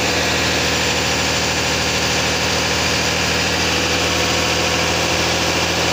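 Tata 3718 truck's diesel engine idling steadily.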